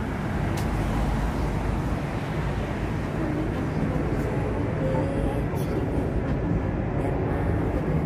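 Steady low rumble of street traffic, with faint voices in the background.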